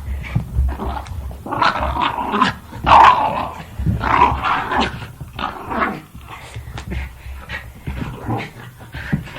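Jack Russell terrier growling and giving short barks in play, a rapid run of rough growls and yaps, loudest about three seconds in.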